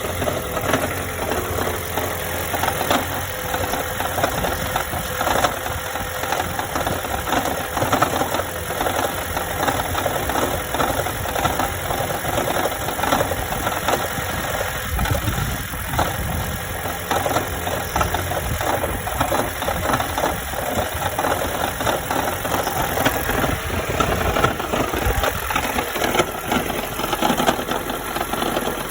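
Toyota Auris 1.8 hybrid running and making a strange noise: a steady, fast, irregular knocking over the sound of the engine.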